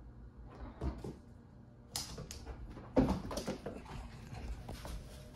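Sliding glass balcony door rattling and scraping along its track, with a loud knock about three seconds in. Before it, a couple of soft thumps.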